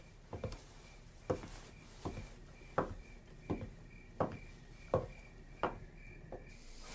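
Slow, even ticking knocks, about one every three quarters of a second, with a faint high chirp pulsing a couple of times a second behind them.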